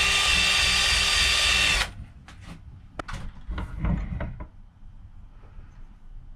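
Cordless drill spinning a round brush attachment against a metal bicycle pedal cage held in a vise, cleaning and polishing it; it stops suddenly about two seconds in. Several clicks and knocks follow as the metal cage is handled against the vise.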